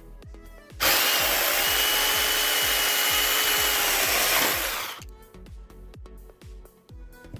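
Small battery-powered pruning chainsaw cutting firewood. The cut starts abruptly about a second in, runs as a loud, steady cutting noise with a faint whine over it, and dies away after about three and a half seconds. Background music with a beat plays throughout.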